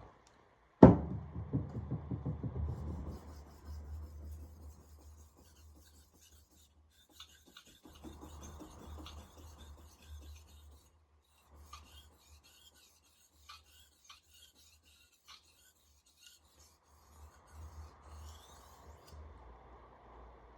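Steel blade of a Wüsthof Classic chef knife being stroked quickly back and forth across a wet whetstone, a rhythmic scraping and rasping in runs of strokes. The strokes are sharpening the edge after a burr has been raised. A sharp knock about a second in is the loudest sound.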